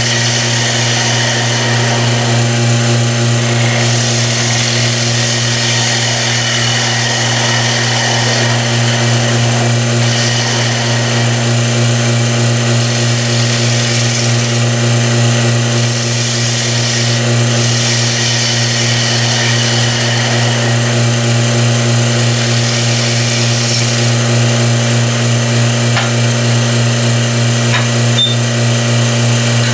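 Vacuum pump running with a steady, loud hum, under the hiss and scrape of a bowl gouge cutting a wooden bowl spinning on a lathe.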